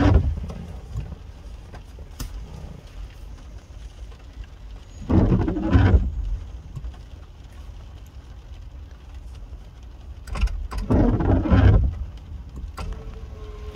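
Car windscreen wipers sweeping across a rain-wet windscreen about every five seconds, three sweeps of about a second each, over steady rain and a low engine rumble.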